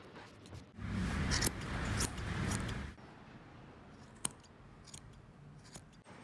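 Small scissors snipping stray yarn tails on a tufted wool rug's pile: a few sharp separate snips in the second half. Before them comes a louder noisy stretch of about two seconds as the rug is worked by hand.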